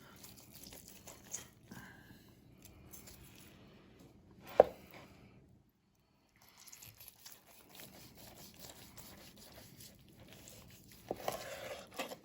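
Knife cutting through a smoked brisket on a cutting board: quiet scraping and tearing sounds, with one sharp knock about four and a half seconds in and louder cutting near the end.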